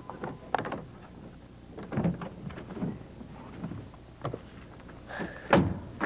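Car door and handling clunks as people get out of a parked car, a scatter of knocks and rustles with a brief squeak just after five seconds and the loudest thump, a door shutting, about five and a half seconds in.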